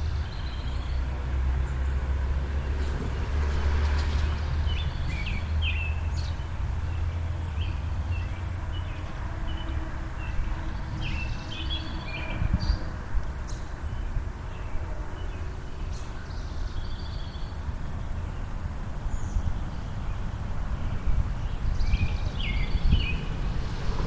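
Small songbirds chirping and twittering in short bursts over outdoor ambience. A low rumble is heaviest for the first several seconds, then gives way to uneven, gusty wind noise on the microphone.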